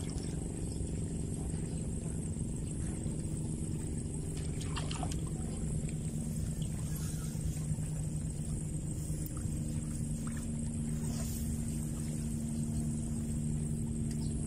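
A steady low hum from a motor, with a brief faint sound about five seconds in.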